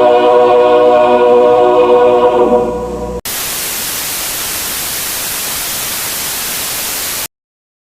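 A held, choir-like musical chord sags in pitch and breaks off about three seconds in, cut straight to loud white-noise static, the hiss of a dead TV channel. The static runs steadily for about four seconds and stops abruptly.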